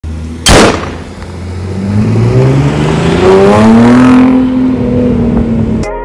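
B8 Audi A5 accelerating hard past and away, its engine note rising in pitch for a couple of seconds, then holding and easing slightly. A sharp, loud burst about half a second in is the loudest moment, and the sound cuts off abruptly near the end.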